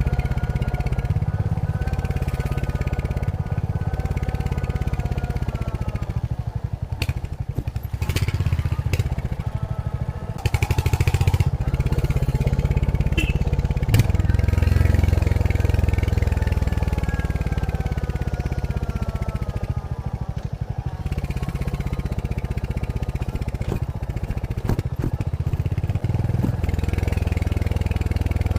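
Royal Enfield Hunter 350's single-cylinder engine running through its stock exhaust on the move. The engine note drops about four seconds in as the bike slows, picks up again around ten seconds in, then eases slowly down again, with a few brief knocks from the road along the way.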